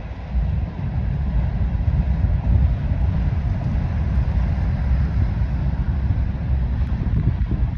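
Norfolk Southern grain train rolling past, a steady low rumble, with wind buffeting the microphone.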